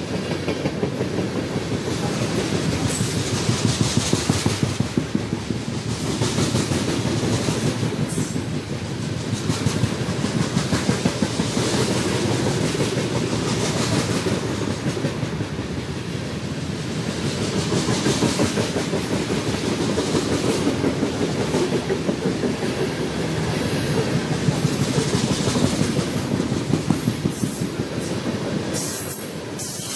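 BNSF freight train cars rolling past, their steel wheels clicking over the rail joints in a rapid, steady clatter over a rumble.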